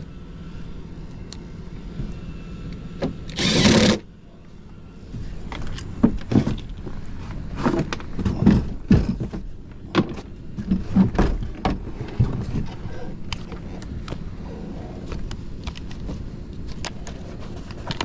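Knocks and clicks of hands and tools on an air handler's sheet-metal cabinet and panels, over a steady low hum. A short, loud rushing burst comes about three and a half seconds in.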